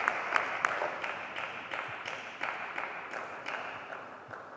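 Table tennis rally: the plastic ball clicks off bats and table in a quick, even rhythm, about three strikes a second, over a steady hiss of hall noise. The whole sound grows slowly fainter.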